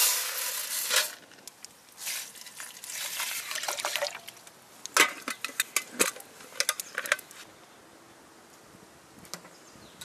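Contents poured from a bag into an aluminium mess tin holding water, twice, then the metal lid set on and clipped shut with a run of sharp clinks and clicks.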